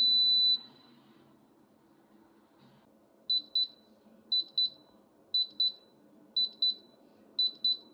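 Instant Pot Pro electric pressure cooker beeping: a long beep that ends about half a second in, then from about three seconds in, pairs of short high beeps about once a second. The pairs are the pressure-release reminder, signalling that the 5 minutes of natural release are up and it is time to release the pressure.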